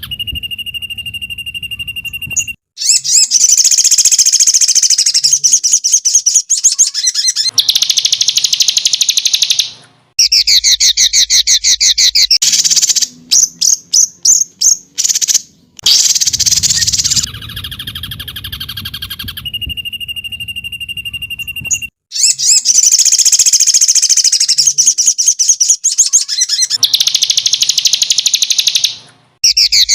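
Songbird song from a 'masteran' recording, the edited loop of birdsong played to teach cage birds to sing. Loud, fast trills and chirp series follow each other in abruptly cut segments: a held whistle early on, a run of separate rapid chirps around the middle, and the same sequence starting again about two-thirds through.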